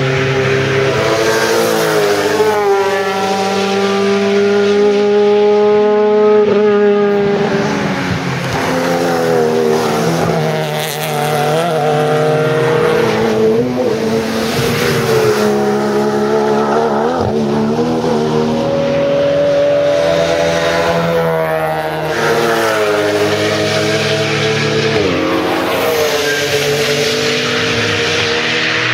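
Race car engines at speed, one car after another, each rising in pitch under acceleration and falling back at gear changes and braking.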